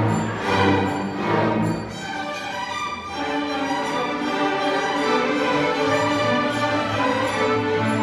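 Student string orchestra of violins, cellos and double basses playing. Strong, pulsing accented chords come in the first two seconds, then the playing settles into a smoother, steadier passage.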